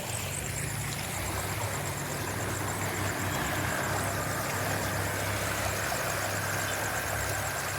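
An engine idling steadily with a low, even hum, over the hiss of fast-flowing water.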